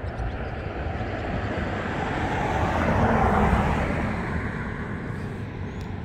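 A vehicle passing by: a rushing noise that swells to a peak about halfway through and then fades away, over a steady low rumble.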